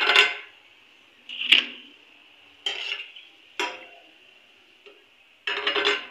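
Steel slotted spoon knocking and scraping against the rim of a steel kadai as fried kachoris are lifted out of the oil. A handful of sharp metal clinks come about a second apart, with a longer scraping clatter near the end.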